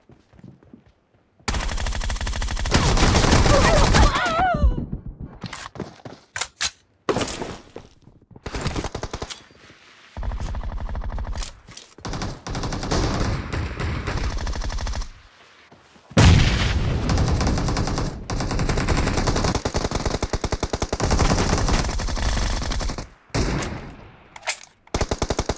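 Video-game automatic gunfire: long bursts of rapid shots broken by short pauses. It starts about a second and a half in, with a brief warbling tone sliding up and down a couple of seconds after that.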